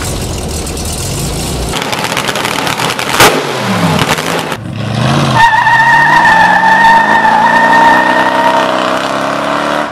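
Montage of car engine sounds: a Volkswagen Beetle's exhaust rumbling at idle, then racing engines revving with a sharp crack, then a car's engine note rising steadily in pitch as it accelerates along a road.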